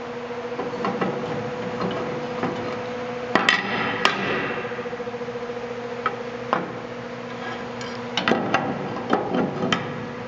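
Sharp metallic knocks and clanks from parts of a cast-iron table saw being handled, over a steady hum. The two loudest knocks come about three and a half and four seconds in, and a quick run of them comes near the end.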